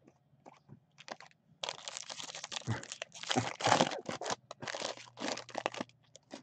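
Foil wrapper of a Topps baseball card pack being torn open and crinkled by hand: a few light clicks, then a dense run of crackling that is loudest near the middle.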